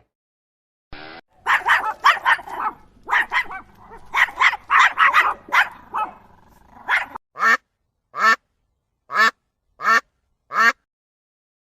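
Ducks quacking: a dense run of rapid quacks, then single quacks spaced just under a second apart for the last few seconds.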